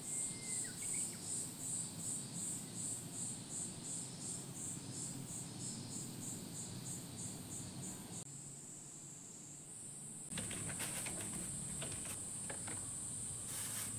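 Summer insects chirping in a high-pitched rhythmic pulse, about three times a second. After a cut it becomes a steady, unbroken high insect buzz. A few light taps of sandal footsteps on a wooden deck come near the end.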